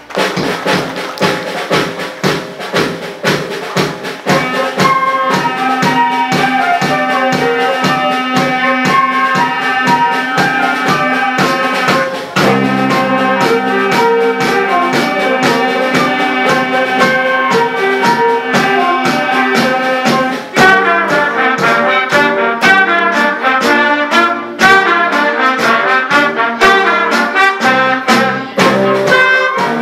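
School concert band playing: flutes, alto saxophones, clarinets, trombone and electric guitars over a steady beat. The band comes in together at the start, and the notes turn quicker and busier about two-thirds of the way through.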